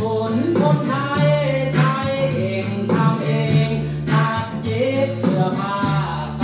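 A song with a singing voice, a held bass line and a steady beat, played back through a vintage valve hi-fi system (McIntosh 240 tube power amplifier with a Marantz 7C preamplifier) and heard in the room.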